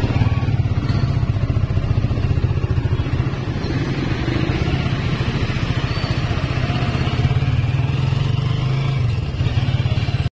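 Motorcycle engine running steadily with road noise, heard from on board a moving vehicle.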